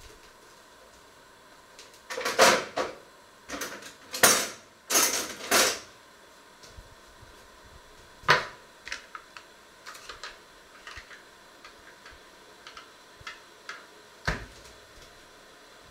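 Kitchen handling sounds: a burst of clattering knocks about two to six seconds in, single sharp knocks about eight and fourteen seconds in, and light clicks between, as tableware and utensils are picked up and set down on a countertop.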